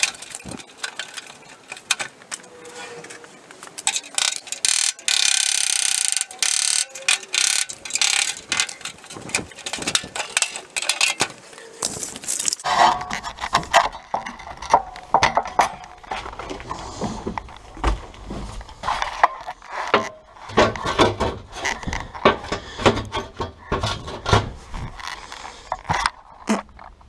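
Angle grinder cutting sheet-steel floor pan, in short stop-start cuts with one steady cut of about two seconds around five seconds in. From about halfway on, irregular clunks, clicks and rustling of handling close to the microphone.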